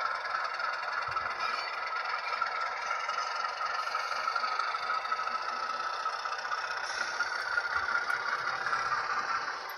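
Model railway train running on metal track: a steady rattling, scraping rolling noise, a little quieter near the end.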